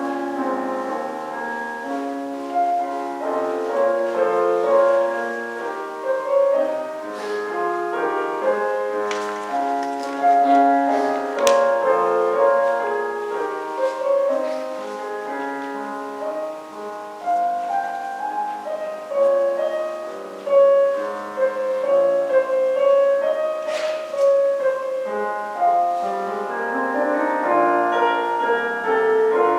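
Instrumental keyboard music, a slow piece of overlapping sustained notes and chords, with a single sharp click about eleven seconds in.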